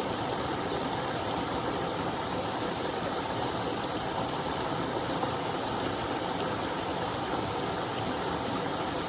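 Small but powerful waterfall running: a steady, even rush of falling water.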